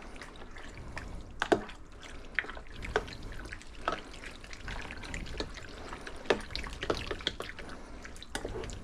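Fish chunks being mixed in a liquid marinade: irregular light wet clicks and drips, a few a second.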